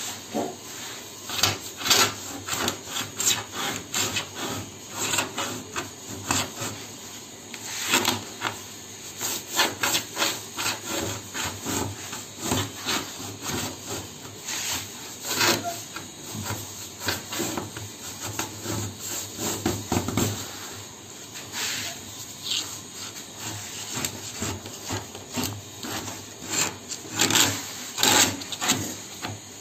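The sharpened needle point of a circle cutter, ground to a V edge, is dragged round a pivot and scores a groove into a 0.8 mm sunmica laminate sheet. It makes short scraping strokes, a few a second and unevenly spaced.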